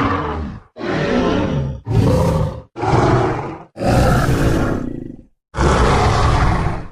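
Pachyrhinosaurus creature sound effect: a run of about five deep, rough roars and bellows, each about a second long, following one another with short pauses.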